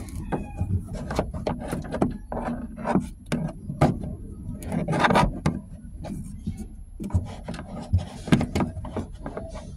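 Hands working at car interior trim and dash cam wiring: irregular rubbing and scraping with many light knocks and clicks.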